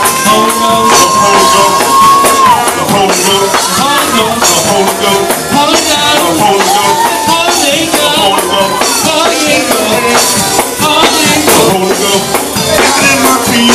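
Live church praise music with fast drums, tambourine and voices singing and shouting. A held high note opens it, then breaks off about two and a half seconds in.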